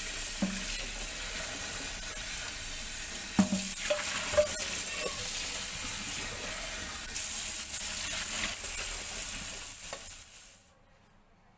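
Water running steadily into a stainless steel sink, with a few metal knocks from the colander and pot a few seconds in; the water stops shortly before the end.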